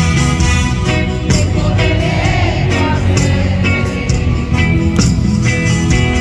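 Live band music played through an arena PA: drums keeping a steady beat under keyboards, guitar and a horn section, with the hall's echo around it.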